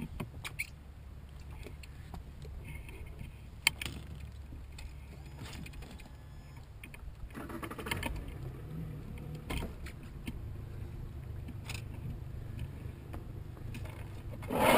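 Scattered clicks and knocks of gear being handled on a small fishing boat, over a steady low rumble, with a louder knock just before the end.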